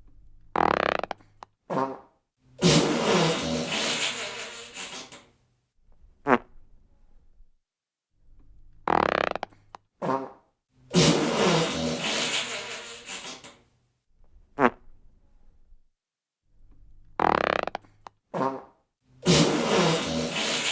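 Fart sound effects: a group of four farts, a short one, a brief one, a long one that trails off over about two seconds, then a short sharp one, played three times about eight seconds apart.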